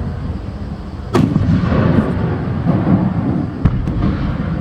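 Aerial firework shells bursting at a fireworks display: a loud boom about a second in, followed by a long rumbling crackle, and another sharp bang about three and a half seconds in.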